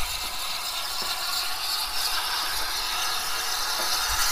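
Small steam saddle-tank locomotive hissing steadily as it lets off steam, with a few light mechanical clicks and clanks.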